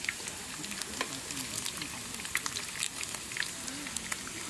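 Pork belly frying and sizzling, with a constant crackle of popping fat.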